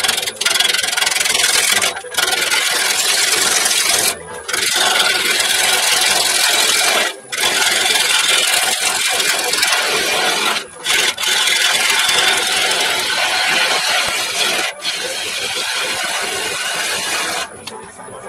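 A turning gouge cutting into an end-grain wood blank spinning on a Record Power CL4 lathe: a continuous rasping, scraping cut that breaks off briefly several times as the tool leaves the wood, and stops shortly before the end.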